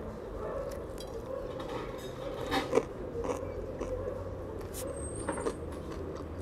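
A person chewing a mouthful of a bread-roll sandwich: soft mouth and bread sounds with a few sharp clicks and crackles, over a steady low hum.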